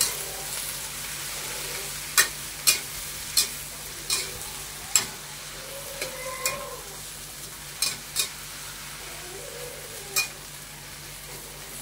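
Water spinach stir-frying in hot oil in an aluminium wok: a steady sizzle, with irregular sharp clacks of the spatula striking and scraping the wok from about two seconds in.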